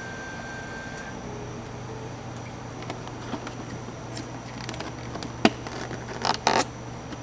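Cardboard cake box being folded shut: light crinkles and taps of the flaps, a sharp tap about five and a half seconds in, and a quick run of scrapes and rubs a second later, over a steady low hum.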